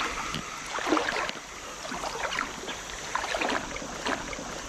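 Shallow river water sloshing and splashing in irregular surges, as around legs wading through it.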